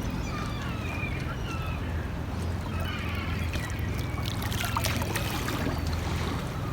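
Birds calling over and over in short, falling chirps above a steady low hum at the harbour waterside, with a few sharp clicks about two-thirds of the way through.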